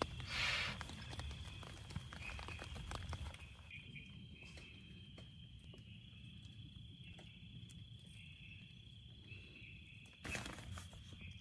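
Nylon sleeping bag rustling as it is handled, loudest in the first second. From about three seconds in it gives way to a steady high chirring of night insects, with a few faint ticks.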